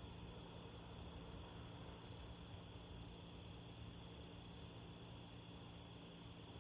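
Faint crickets chirping in short, spaced chirps over a low steady rumble.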